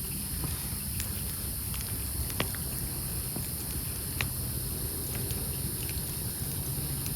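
Campfire of stacked wood logs crackling, with scattered sharp pops, the loudest about two and a half and four seconds in, over a steady low rumble.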